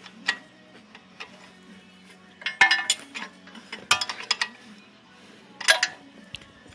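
Hand tools working an alternator adjusting bolt: sharp metallic clicks and clinks in three short bursts of rapid clicks, over a faint steady hum.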